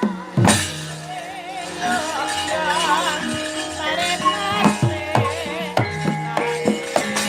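Javanese gamelan music accompanying a wayang kulit shadow-puppet play: held pitched tones and a wavering melodic line, punctuated by sharp metallic, rattling strikes.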